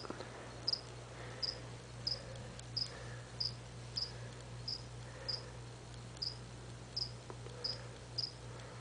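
A cricket chirping: short, high chirps repeated steadily, about one every two-thirds of a second, over a steady low hum.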